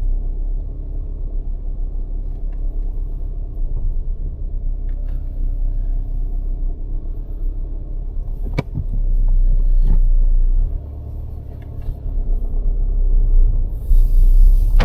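Steady low rumble of road and engine noise inside a moving car's cabin, with two sharp knocks a little past the middle and a louder, hissier stretch near the end.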